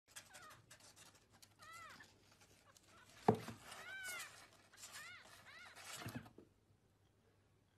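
A tiny kitten mewing faintly: about five short, high mews, each rising and falling in pitch. A single sharp thump about a third of the way in is the loudest sound.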